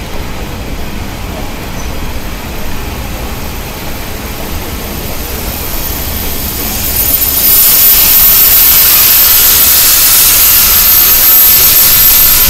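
Steady low rumble of a moving train. About seven and a half seconds in, a loud steady hiss of steam venting from a steam locomotive rises up and continues.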